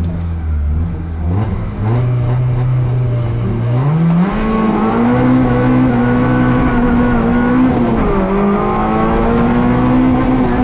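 Rally car engine heard from inside the cabin, accelerating hard: its pitch climbs in two steps in the first half and is held high, with a brief dip about eight seconds in before it climbs back.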